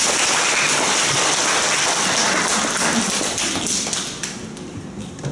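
An audience applauding: many hands clapping together, dying away near the end.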